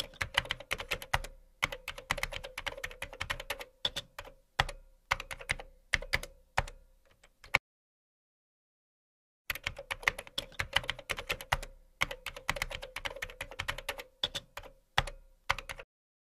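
Fast keyboard typing, a run of rapid key clicks that stops about seven and a half seconds in, falls silent for about two seconds, then starts again and types on until shortly before the end.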